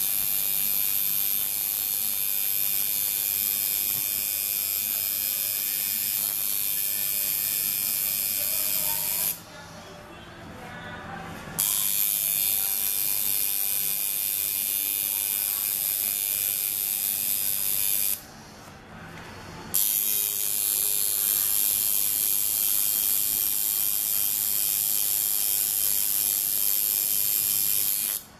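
Electric tattoo machine buzzing steadily as its needle works colour into the skin of an arm tattoo, stopping twice for a second or two partway through.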